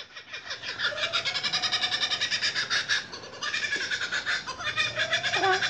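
Laughing kookaburra calling: a rapid run of chuckling notes, about ten a second, in two bouts with a short break about three seconds in.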